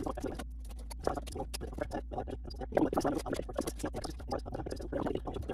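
Flat file of a Swiss Army knife scraping around the inside of a cut copper pipe end in short irregular strokes, deburring it, over a steady low hum.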